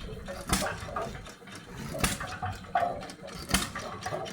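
Hit-and-miss stationary engine running, with a sharp bang about every second and a half and lighter clicking between the bangs.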